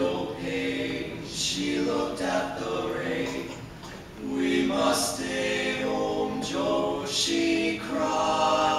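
Male barbershop quartet singing a cappella in close four-part harmony, holding sustained chords with short breaks between phrases.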